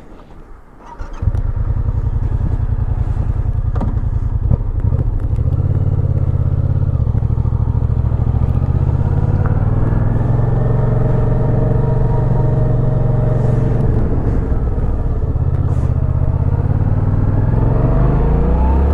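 Yamaha FZ-07's parallel-twin engine starts about a second in and runs steadily. Near the end its pitch rises as it revs up to pull away.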